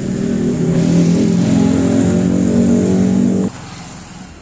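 A vehicle engine running with a steady low hum, which cuts off suddenly about three and a half seconds in.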